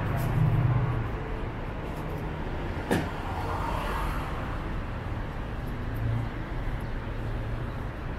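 Street traffic noise, with a car engine running close by in the first second and a single sharp click about three seconds in.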